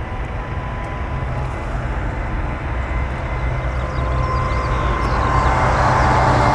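Airbus A380's four Rolls-Royce Trent 900 jet engines at high thrust on the takeoff roll. A deep rumble with a steady fan whine, growing louder as the aircraft comes closer.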